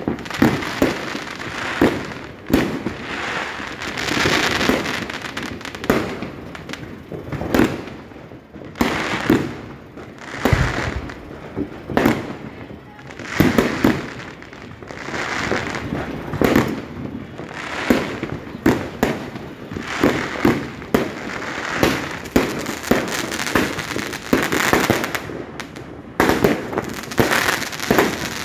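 Fireworks going off without a break: a dense, irregular run of sharp bangs and crackling pops as aerial shells burst.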